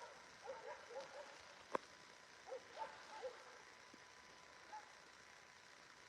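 Faint animal calls, short and arching, repeated in small clusters, with a single sharp click about two seconds in.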